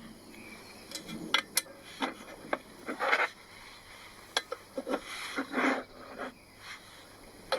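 Metal camping cookware handled while making coffee: light clinks and knocks, with short scraping and rustling between them.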